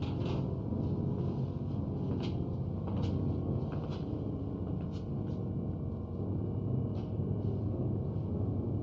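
Steady low rumble in a film soundtrack, with faint, irregular clicks and taps scattered through it.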